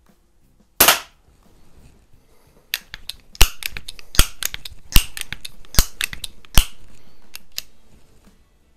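A Crosman Model 130 .22 pump-up pellet pistol fires one shot about a second in. It is then pumped for the next shot: about five evenly spaced clacks of the pump lever, a little under a second apart, with a hiss of air between them.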